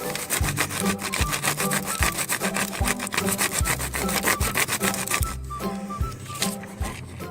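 Wax crayon rubbed quickly back and forth over paper laid on a textured surface, making a rapid scratchy rasping that stops about five seconds in. Background music with a steady beat runs underneath.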